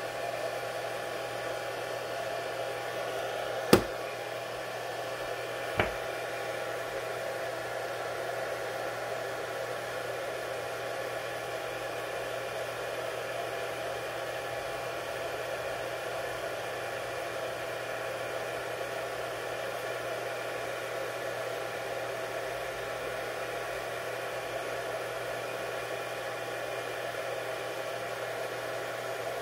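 A small motor whirring steadily, with two sharp clicks about four and six seconds in, the first louder.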